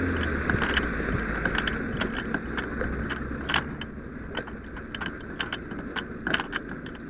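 A fire engine's diesel engine runs steadily behind, growing fainter as the wearer moves off. Over it, metal turnout gear and equipment jingles and clinks in irregular short clicks with the walking steps.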